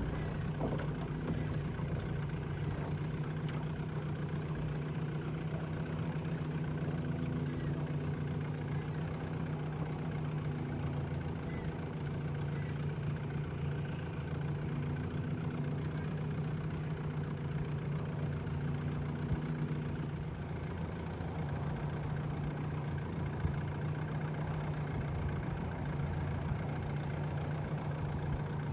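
Small outboard motor running steadily at low speed, a constant low engine hum with a faint knock.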